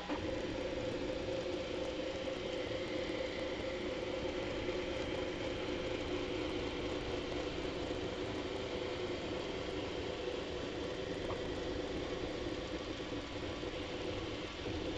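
Bambu Lab A1 3D printer running a print: its stepper motors moving the print head and bed, together with its fans, make a steady mechanical whir and buzz.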